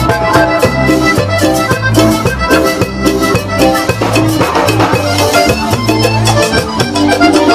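A cumbia band playing live: an instrumental passage over a steady bass and percussion beat.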